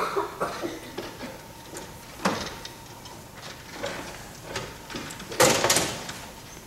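A run of irregular clicks and knocks, with a sharp click at the start and a louder, longer rustling scrape a little over five seconds in.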